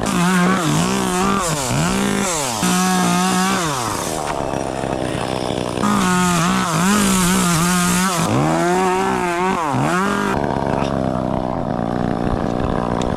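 Chainsaw running at high revs while cutting wood, its engine pitch repeatedly sagging under load as the chain bites in and climbing back as it frees.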